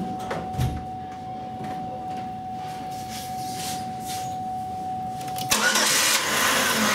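2003 Chevy Impala's 3400 V6 starting suddenly about five and a half seconds in, then running loudly. This engine's exhaust is choked by a melted, restricted catalytic converter. Before the start there is only a steady thin high tone and a few faint clicks.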